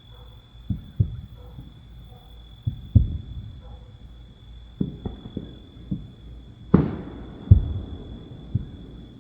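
Distant fireworks booming across the mountains: about ten low, dull thuds at uneven intervals, with a sharper, louder bang a bit under seven seconds in.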